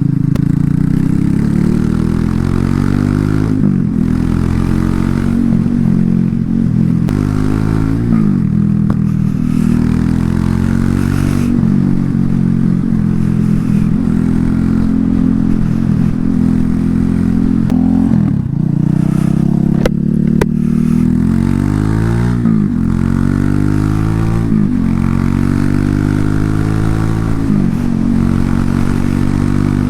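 Loncin LX250-12C motorcycle engine and exhaust while riding, the pitch rising as it accelerates and dropping back at each gear change, again and again.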